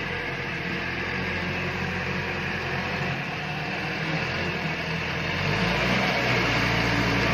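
A machine running steadily with a low hum and a noisy whirr, growing louder about five and a half seconds in.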